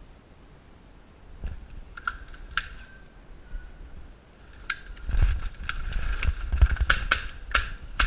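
A series of sharp clicks and snaps: a few scattered ones at first, then coming irregularly several a second from about five seconds in, over a low rumble.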